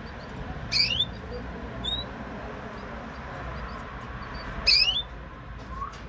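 Spanish Timbrado canary giving two short calls about four seconds apart, each a quick chirp rising in pitch, with a fainter chirp between them.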